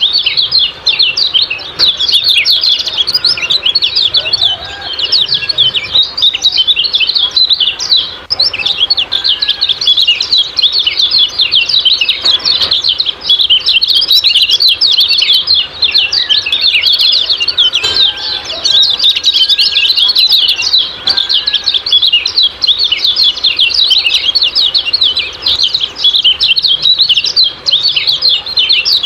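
Kecial kuning giving its 'ciak-ciak' call: a fast, unbroken stream of high chirps, with a few fainter, lower whistled notes beneath. It is used as a lure recording to set caged birds singing.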